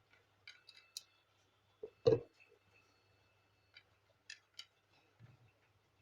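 Scattered small clicks and taps of printer parts being handled during reassembly of the gear assembly, with one louder knock about two seconds in, over a faint steady low hum.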